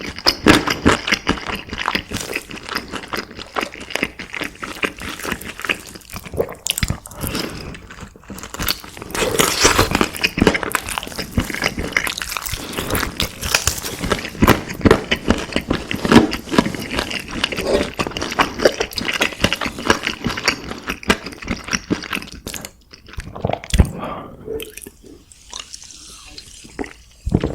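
Close-miked chewing of a person eating, a dense run of irregular wet mouth clicks and crackles, quieter near the end.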